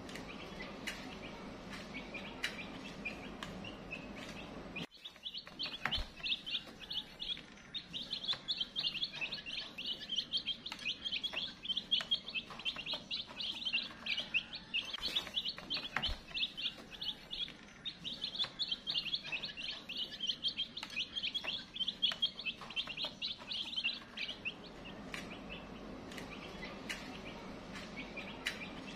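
Chicks peeping: a dense run of rapid, high chirps that starts suddenly about five seconds in and dies away a few seconds before the end, with only faint scattered peeps before and after.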